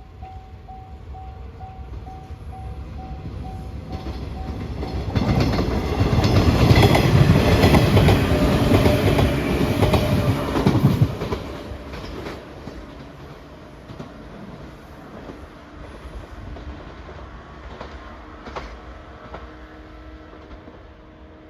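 Level-crossing warning bell dinging at about two strikes a second, then a train passing close, loudest for about six seconds with its wheels clattering over the rail joints, and fading away.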